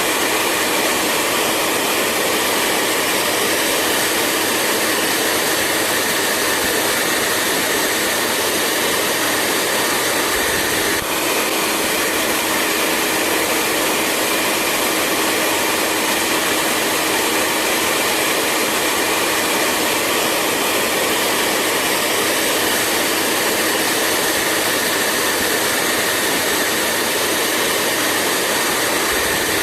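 Hair dryer running steadily: a constant blowing rush with a steady motor hum, with a brief small change about eleven seconds in.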